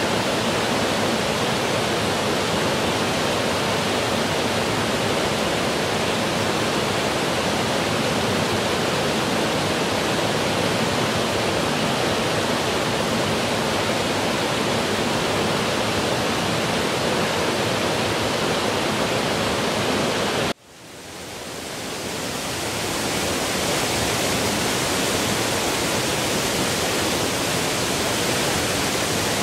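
Steady rush of a fast-flowing river tumbling over rocks and small falls. About two-thirds of the way through it cuts out abruptly, then fades back in over a couple of seconds, brighter and more hissing than before.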